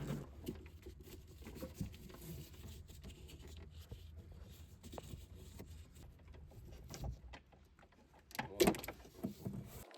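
Scattered light clicks and knocks as door wiring connectors are unplugged and the harness is handled, over a low steady hum, with one louder knock and brief squeak near the end.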